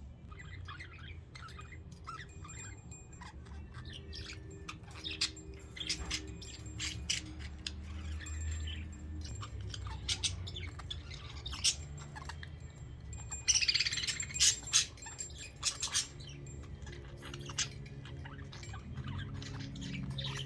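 Budgerigars chirping and chattering in many short calls, with a louder burst of scratchy chatter about thirteen seconds in.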